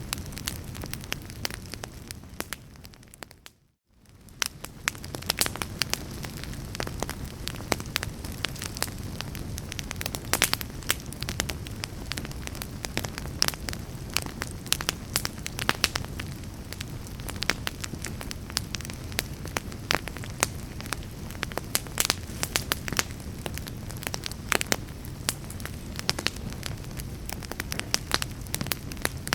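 Wood fire burning in a fireplace: many sharp crackles and pops over a steady low rumble of flame. About three and a half seconds in, the sound fades briefly to near silence, then fades back in.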